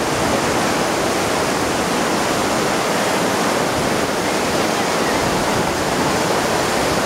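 River rapids: white water rushing over rocks below, a loud, steady wash of noise.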